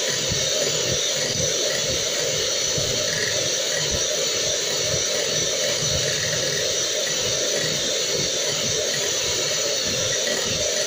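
Electric hand mixer running steadily, its beaters whisking egg whites in a glass bowl.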